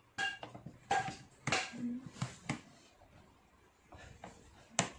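Plastic parts of a spin mop bucket being handled and the lock clip fitted: several sharp, separate plastic clicks and knocks, the loudest near the end.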